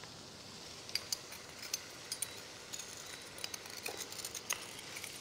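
Prawns in coconut-milk curry sizzling faintly in a wok as a spatula stirs them, with irregular light clicks and taps of the utensil against the pan.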